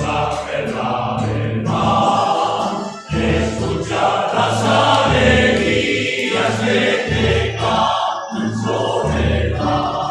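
Song introduction: music with a pulsing bass line under a full, choir-like sound.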